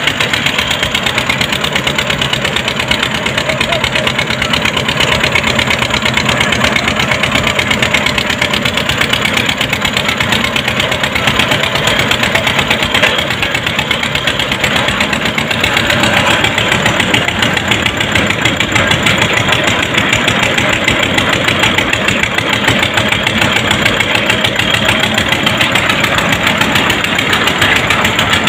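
Truck-mounted borewell drilling rig's engine running steadily with a fast, even pulse.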